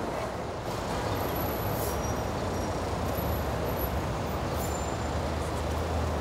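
City street traffic noise: a steady hum of passing traffic, with a large vehicle's engine droning low that grows stronger about two seconds in and holds.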